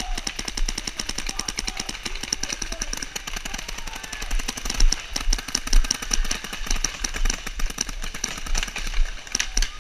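Paintball markers firing in rapid strings, many shots a second, with a few louder shots standing out.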